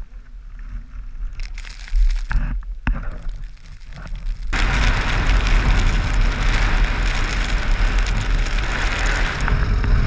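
Loud, crackling wind buffeting a helmet-mounted microphone while riding a dirt bike through a snowstorm, starting abruptly about halfway through. Before it, quieter wind with a few sharp knocks.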